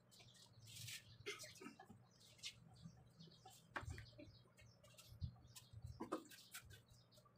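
Near silence with faint scattered clicks and smacks of eating by hand, fingers picking at fried milkfish and mouth sounds, over a low steady hum.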